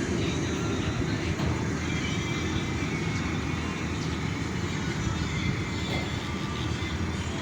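Steady rumble of aircraft engines with a hiss above it, holding at an even level.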